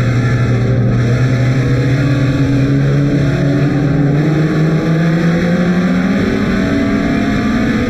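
Engine of a front-wheel-drive compact race car heard from inside its caged cockpit, running at moderate revs with its pitch slowly rising, dipping briefly about six seconds in, then climbing again, with other compact cars' engines close around it.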